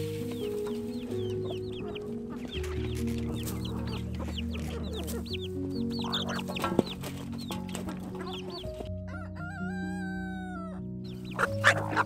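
A flock of backyard hens clucking and cheeping as they crowd around a feed pan to eat. A rooster crows once, about nine seconds in, for about two seconds. There is soft piano music underneath, and a couple of sharp taps come near the middle and the end.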